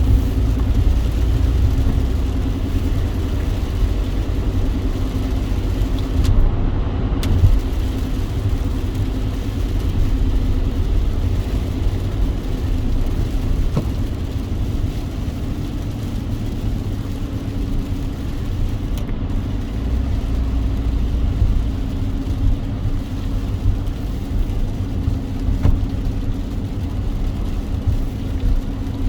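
A car driving in the rain: a steady low rumble of engine and road with an even hiss of rain and wet tyres over it. The high hiss briefly cuts out twice, about six seconds in and again near the twenty-second mark.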